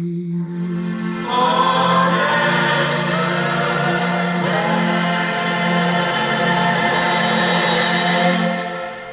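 Background music with sung voices in sustained, choir-like harmony over a held low note. It grows fuller about a second in and fades near the end.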